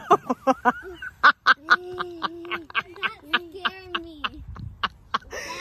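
Farm waterfowl calling in a rapid series of short, harsh honks and quacks, several a second, with a few longer drawn-out calls in the middle.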